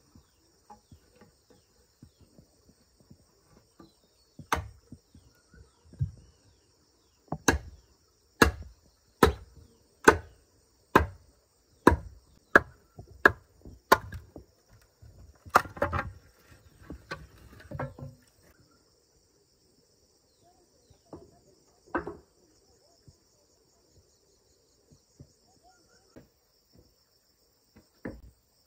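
Machete chopping into a standing green bamboo post: about a dozen sharp strikes roughly one a second, then a few weaker ones and long gaps. Insects trill steadily in the background.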